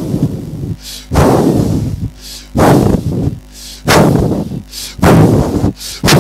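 Six forceful, distorted vocal blasts into a handheld microphone, about one every second and a quarter, loud enough to overload it.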